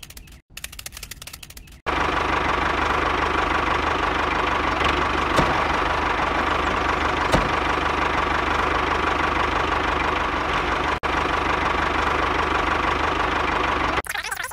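Small electric motor of a model machine running steadily with a high whine. It starts about two seconds in and cuts off suddenly near the end.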